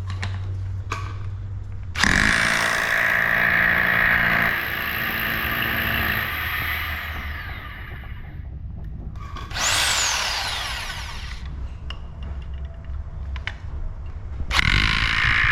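Topshak rotary hammer drill running in three bursts. A long run about two seconds in, a short one in the middle and a restart near the end. After the first two, the motor winds down in a falling whine as the trigger is let go.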